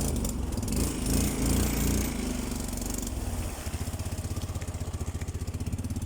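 Motorcycle engine running as the bike is ridden, its exhaust pulsing steadily, then settling to a quieter, even beat about three and a half seconds in.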